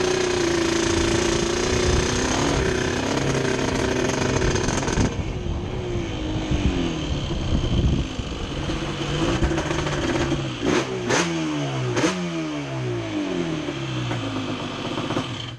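Yamaha Banshee ATV's twin-cylinder two-stroke engine under way: held at a steady pitch for the first few seconds, then revving up and down repeatedly as the throttle is worked. It is running cleanly after a misfire was cured by setting the carburetor needle leaner.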